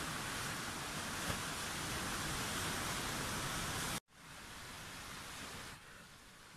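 Sea surf washing on the shore, a steady hiss that cuts off suddenly about four seconds in, then continues more quietly.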